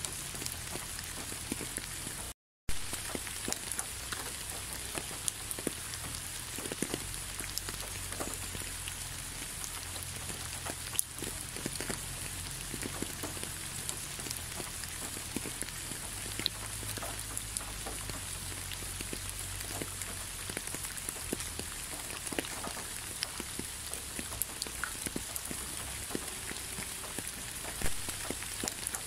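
Steady rainfall: a continuous hiss dotted with many separate drop hits, a few of them louder. The sound cuts out completely for a moment about two and a half seconds in.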